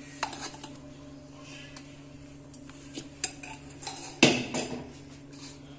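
Metal spoon scraping and clinking against an aluminium pressure cooker as cooked rice is scooped out, a few scattered light clicks over a faint steady hum, with a louder clatter of steel dishes about four seconds in.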